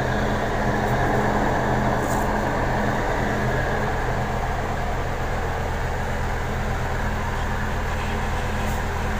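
Bus engine idling with its air conditioning running: a steady low engine hum under the even rush of the AC unit's fans. The system has a newly fitted compressor, condenser and dryer and is cooling well.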